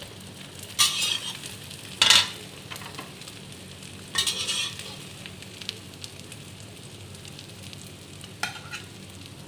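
Egg and winged-bean omelette patties sizzling steadily in hot oil in a frying pan. A spatula scrapes the pan four times, loudest about two seconds in.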